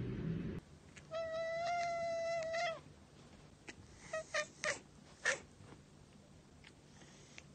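A ginger cat gives one long, steady meow about a second in, then four short, sharp calls between about four and five and a half seconds.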